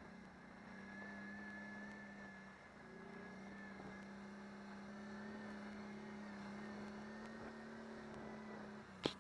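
Can-Am Renegade 500 ATV engine running at a steady cruising speed, heard from the rider's helmet, easing off briefly about a third of the way in and then holding steady. A single sharp knock near the end.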